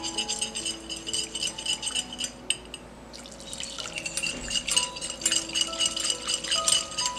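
Wire whisk beating egg yolk and milk in a glass bowl, the wires clicking rapidly against the glass with a slight ring. The whisking pauses briefly a few seconds in, then resumes.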